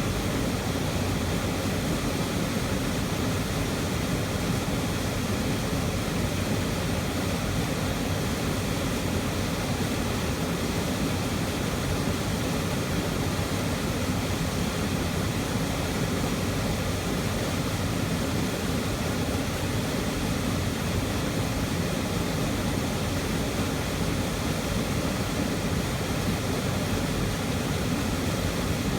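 Waterfall heard from close beside it: a loud, steady rush of falling water, heaviest in the low range, with no breaks or changes.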